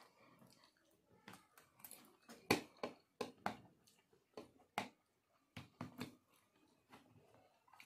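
Scattered quiet clicks and knocks of metal forks and a plastic spoon tapping against plates and a glass sauce bowl.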